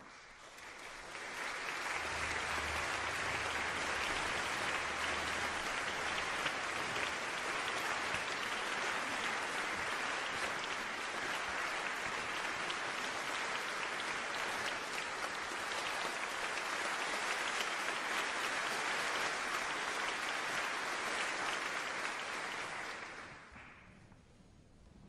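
A concert hall audience applauding as the conductor takes the stage. The clapping swells up over the first second or two, holds steady, and dies away about a second before the end.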